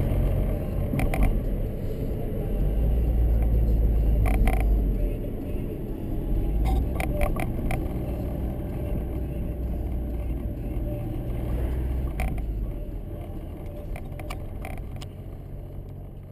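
Car driving on a city street, heard from inside the cabin: a steady low rumble of engine and tyres, with scattered short knocks, growing gradually quieter toward the end.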